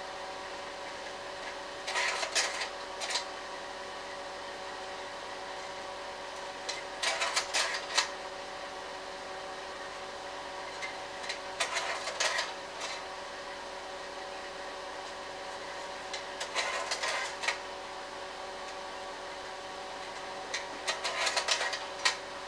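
Slide projector running: its cooling fan hums steadily while the slide-changing mechanism clatters in short bursts of clicks, five times about five seconds apart.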